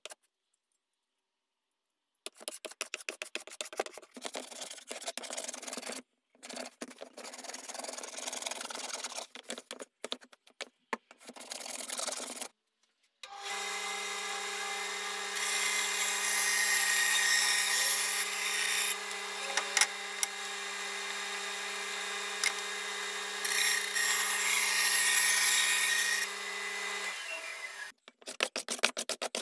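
A hand plane cutting the end grain of an English elm board in quick, repeated strokes. Then a bandsaw runs with a steady hum, hissing louder twice as it cuts through the board, and spins down with a falling pitch. Near the end, quick plane strokes start again.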